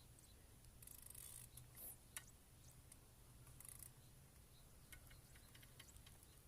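Near silence: faint scratching and a few light clicks over a low steady hum.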